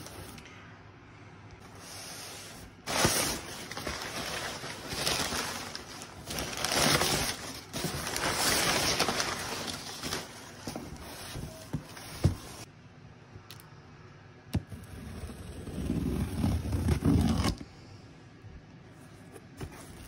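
A cardboard shipping box being opened and unpacked: repeated stretches of cardboard scraping and packing tape tearing, then a few sharp knocks as the parts inside are handled.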